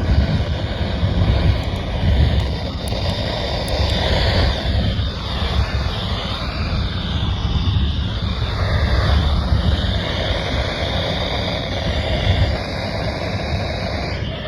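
Loud, steady radio static from a weather radio receiver on a weak NOAA Weather Radio signal, with faint wavering tones under the hiss.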